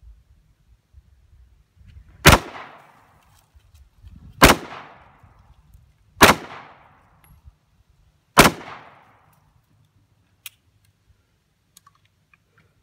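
Four shots from a 9mm pistol, fired singly about two seconds apart, each with a short echoing tail.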